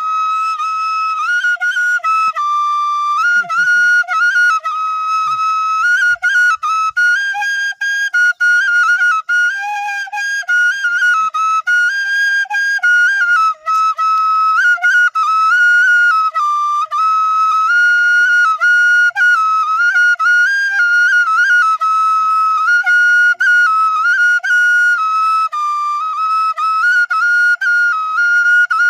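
Bansuri (bamboo flute) playing a solo melody: high held notes stepping up and down, with quick ornamental turns between them and brief dips for breath.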